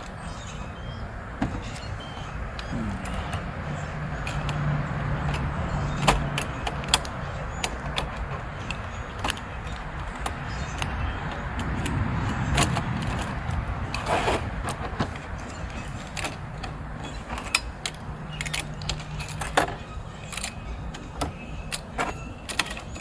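Small metal tools and gear clicking and rattling as they are handled and packed back into a small pouch, with a steady low hum underneath.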